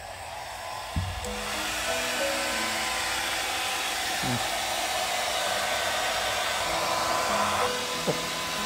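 Hand-held electric hair dryer blowing steadily, drying a freshly bathed cat through the holes of a plastic laundry basket. A single knock sounds about a second in.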